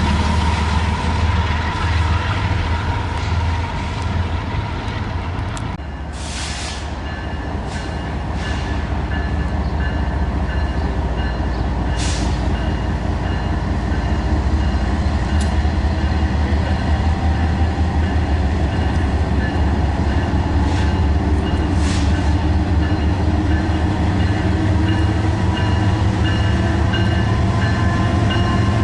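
A train passing: a diesel locomotive's engine running steadily with a deep rumble, and a few sharp clicks of wheels on the rails now and then.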